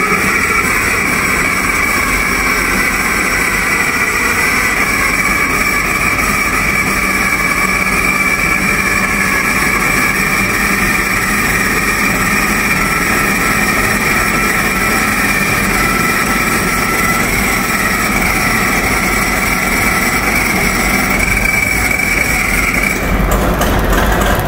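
Allis Chalmers 670T 426-cubic-inch turbocharged diesel in a 100 kW generator set, running steadily just after a cold start, with a steady high whine over the engine. The engine is still clearing water after being submerged. About 23 seconds in, the whine drops away and the engine note changes.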